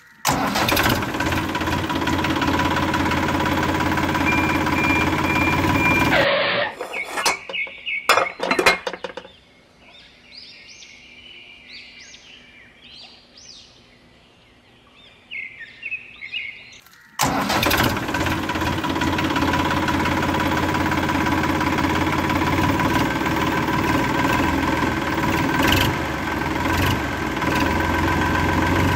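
Tractor engine sound running steadily, cutting off about six seconds in; a few sharp knocks and clicks follow, then a quiet stretch with faint high chirps, and the engine sound switches back on suddenly about seventeen seconds in and runs on.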